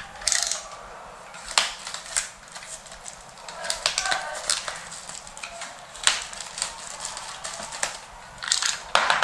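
Hands unwrapping an external optical drive from its white foam packing sheet: irregular rustling and crinkling with sharp taps and clicks, the loudest about a second and a half in, around six seconds and near the end.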